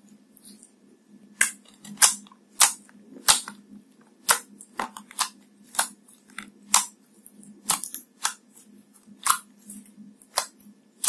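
Clear slime mixed with gold foil being pressed and kneaded by hand, giving sharp sticky pops and clicks about twice a second, starting about a second and a half in.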